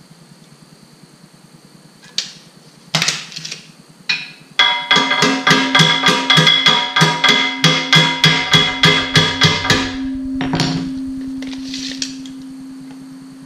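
A hammer striking the steel upright of a B&W Companion fifth wheel hitch: a few single knocks, then from about four and a half seconds in a fast, even run of about five blows a second for some five seconds, each with a clear metallic ring. After the blows stop, a low tone lingers and slowly fades.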